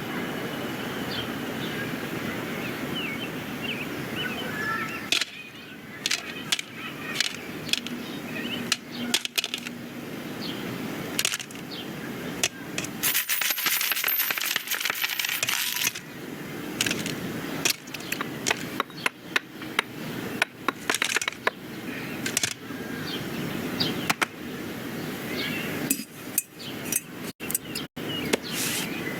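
Animated-film sound effects with no music or dialogue: a string of knocks, clicks and clatters over background ambience, with a few short chirps early on and a loud rushing noise about halfway through.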